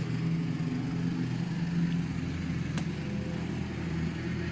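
Steady engine hum, even in pitch, with one sharp click nearly three seconds in.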